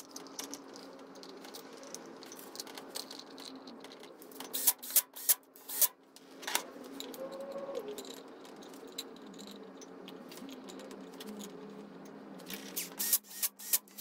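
Sharp metallic clicks and clinks of metal engine parts being handled against a Ducati 900SS aluminium cylinder head, a cluster about four to six seconds in and another near the end, over a steady low hum.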